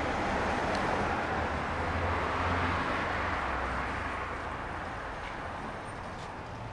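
A road vehicle passing: traffic noise that swells to a peak about two to three seconds in and then slowly fades.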